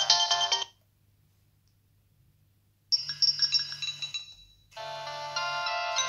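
Nokia 3220 mobile phone previewing its built-in polyphonic ringtones through its loudspeaker as the ringtone list is scrolled. One tune cuts off under a second in, about two seconds of near silence follow, then a second tune plays for about a second and a half and fades, and a third starts near the end.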